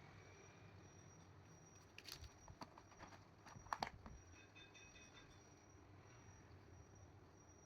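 Near silence with a few faint clicks and taps, as of an object being handled, the loudest a little before the middle, followed by a brief faint series of high tones.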